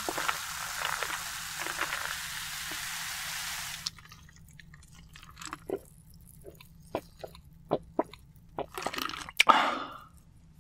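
Coca-Cola Zero Sugar poured over ice into a glass mug, fizzing and crackling until it cuts off suddenly about four seconds in. Then come a few swallows from the mug with small clicks, and a louder breathy sound near the end.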